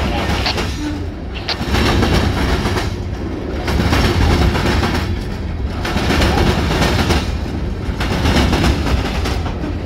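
Freight train's open-top hopper cars rolling past close by, a steady rumble of steel wheels on rail that swells and dips about every two seconds as each car's wheel sets go by.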